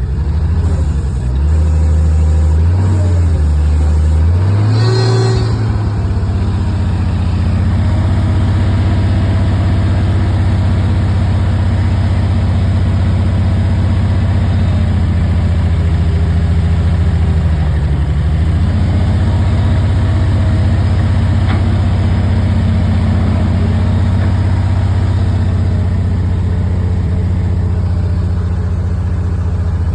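An engine running steadily, its speed shifting up and down a few times in the first five seconds before settling. There is a brief high whine about five seconds in.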